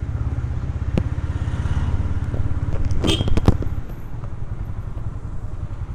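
Motorcycle engine running as it rides along, its low firing pulse steady, then easing off a little just under four seconds in. About three seconds in a short cluster of sharp clicks comes with a brief high squeal.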